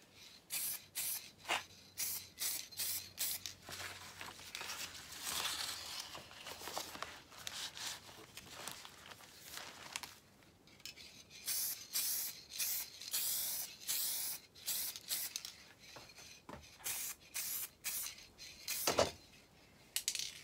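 Aerosol spray-paint can spraying, in short hissing bursts and longer passes, with a single knock near the end.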